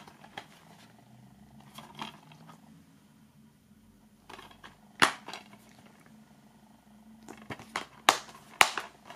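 A plastic DVD case in its shrink-wrap handled and turned over in the hands. It gives a few soft taps and sharp plastic clicks: a loud one about five seconds in and two more near the end, over a faint steady hum.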